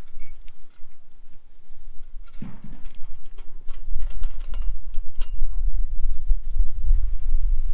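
Small stainless-steel wood-burning hobo stove: the wood fire crackles with many sharp clicks, and metal clinks and a short thud come as the front panel is handled and slid shut. A low rumble underneath grows louder from about four seconds in.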